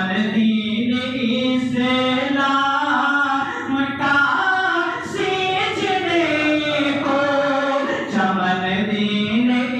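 A man's unaccompanied, melodic devotional chanting in the style of a qari, sung into a microphone. He holds long notes that bend up and down in pitch, with a short pause for breath about eight seconds in.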